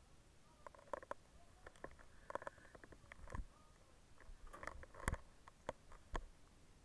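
Faint, irregular clicks and knocks of firefighting gear being handled close to the microphone, the sharpest about five seconds in, with a few brief high tones.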